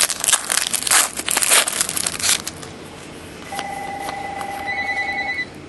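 Foil wrapper of a 2010-11 SP Authentic hockey card pack crinkling and tearing open for about two and a half seconds. From about three and a half seconds in, a phone rings with a few steady electronic tones.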